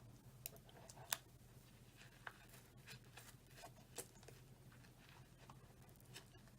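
Near silence: room tone with a faint low hum and a few faint small clicks.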